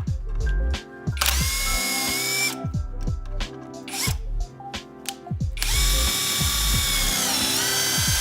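DEKO cordless impact wrench run in two bursts of a high motor whine, a short one about a second in and a longer one from about halfway, which dips in pitch near the end.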